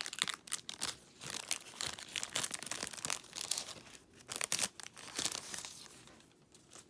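A trading card pack wrapper being torn open and crinkled, in a rapid run of crackles and rips that dies away over the last second or so.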